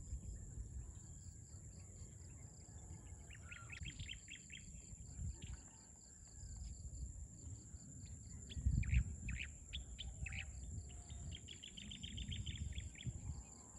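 Rural dusk ambience: birds chirping in short rapid trills and scattered single calls, over a steady high-pitched drone of insects. A low rumble runs underneath and swells briefly about nine seconds in.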